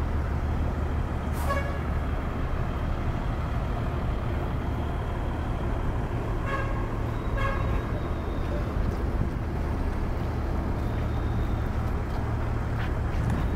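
Large diesel bus engines running with a steady low rumble, with three short horn toots: one about a second in and two in quick succession near the middle.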